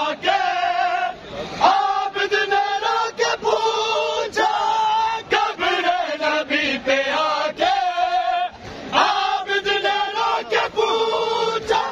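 A crowd of men chanting a Shia mourning noha together, holding sung notes, with sharp hand slaps of matam (chest-beating on bare chests) in a loose rhythm through the chant.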